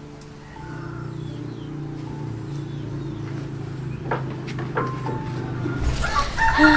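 A low steady hum, then a rooster starts to crow about six seconds in.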